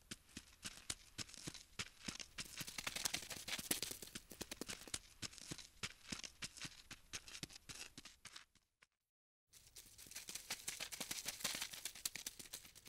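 Rapid, scratchy clicking and rustling, a crawling-insect sound effect that goes with the ladybug's walk. It breaks off completely for about half a second about nine seconds in, then resumes.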